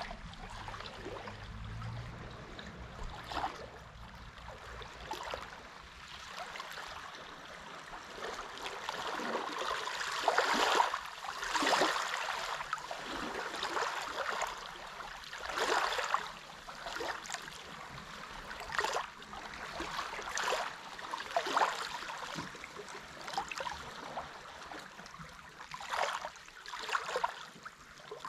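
Small waves lapping and washing at the water's edge on a flat-calm sea, an irregular wash of water with a small splash every second or few seconds, a few larger ones among them.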